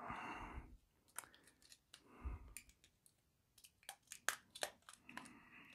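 Light clicks and rattles of plastic-sleepered TT120 model railway track pieces being handled as the elastic bands holding the bundles are pulled off, with a soft thump about two seconds in and a quick run of clicks past the middle.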